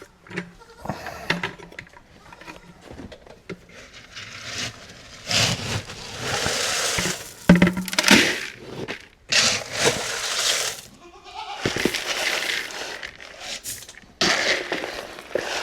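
Goats bleating, among several loud stretches of rustling, scraping noise.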